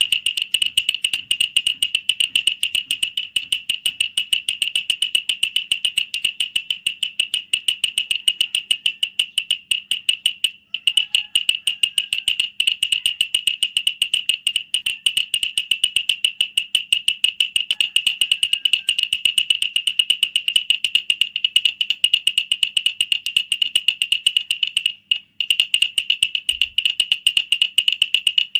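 Wooden baby rattle shaken quickly and steadily: a fast, even run of bright clicks that breaks off briefly twice.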